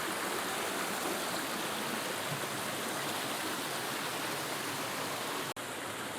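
Steady rushing of a creek's running water, with a momentary break in the sound about five and a half seconds in.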